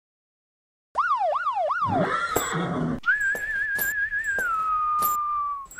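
About a second in, a police siren gives three quick up-and-down whoops, followed by a short rough burst. Then a whistled western-style melody begins, one held wavering note that glides down, over sharp percussive hits.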